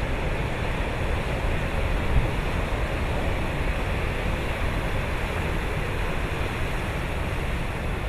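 Heavy ocean surf breaking on a shore: a steady, loud rushing noise, heaviest in the low end.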